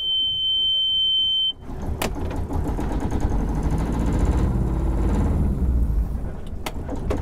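Engine-panel warning buzzer sounding a steady high beep, which stops about a second and a half in as the sailboat's auxiliary engine is cranked and starts; the engine then runs steadily at idle.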